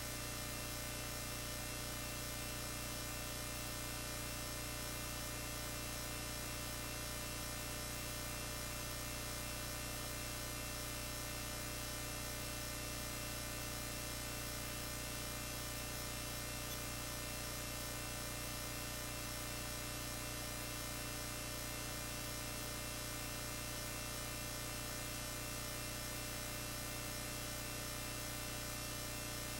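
Steady electrical mains hum with a layer of hiss, unchanging throughout, with no music or other sound.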